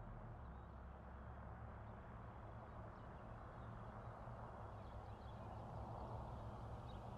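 Faint outdoor ambience: a steady low rumble, with faint bird chirps from about three seconds in.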